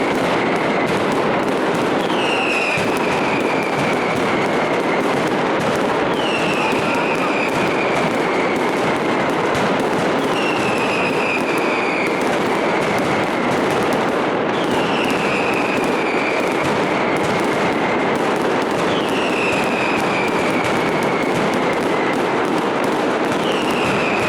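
Fireworks: a dense, continuous crackle of firecrackers, with a falling whistle recurring about every four seconds.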